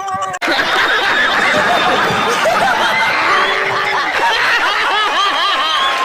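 Many people laughing together, their laughs overlapping in a dense, steady wash that starts abruptly about half a second in.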